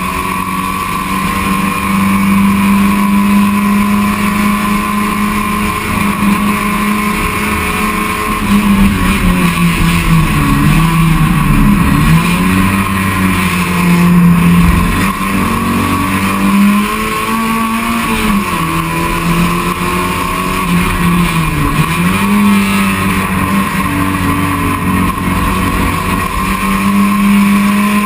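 Touring race car's engine heard from inside the cockpit, running hard at high revs; its note holds steady and then falls and climbs again a few times.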